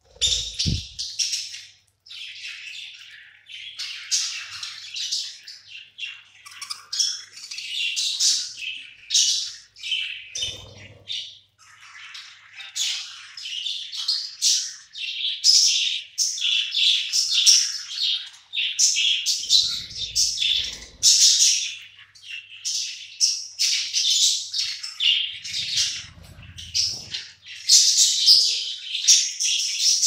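A flock of budgerigars chattering and chirping without pause, many high calls overlapping.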